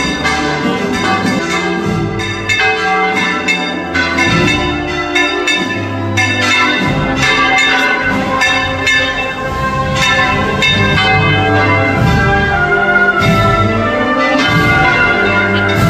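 Church tower bells rung in volteo, the Spanish full-circle swinging of bells on wooden headstocks. They make a continuous, dense peal of overlapping strikes over a low hum that wavers up and down as the bells turn.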